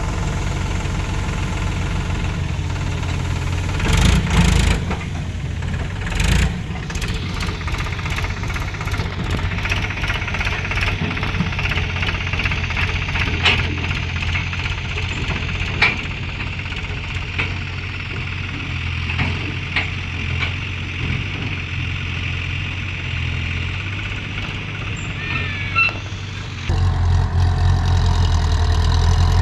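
Diesel engine of working heavy machinery running steadily with a low drone, with a few sharp knocks and clanks over it. The engine gets abruptly louder near the end.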